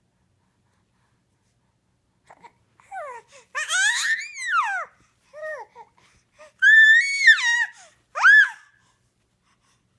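A baby squealing and cooing: a run of very high-pitched squeals that glide up and down, starting after a couple of seconds of quiet, the loudest ones in the second half.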